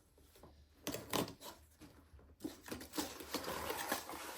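Cardboard shipping box and its packing being handled and pulled open by hand: a couple of sharp crackles about a second in, then dense rustling and crinkling from a little past the midpoint.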